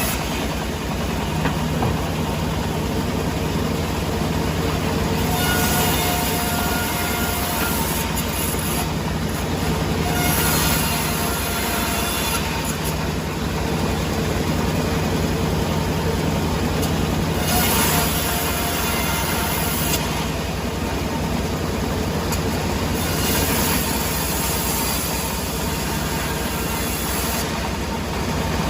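Sawmill machinery running steadily with a low hum, broken every few seconds by louder, hissier stretches.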